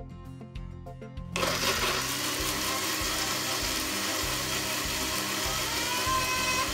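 Whipsip personal blender motor switching on about a second and a half in and running steadily, blending dates, milk, peanut butter and cocoa into a thick paste. Its whine rises slightly near the end.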